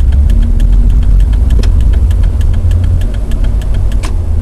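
Jeep Wrangler engine running as the vehicle is driven, heard from inside the cab: a steady low rumble with a fast, even ticking of about seven strokes a second. The engine is taking more throttle and load as it pulls. One sharp click about four seconds in.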